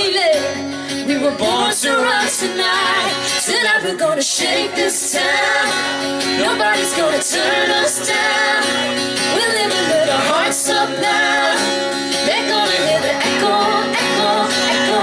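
Country band playing live: strummed acoustic guitars with lead vocals, in a small crowded room.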